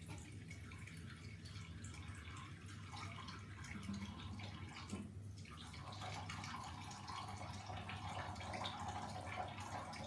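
Water from a tap running and splashing in a bathroom basin, growing fuller and louder about six seconds in.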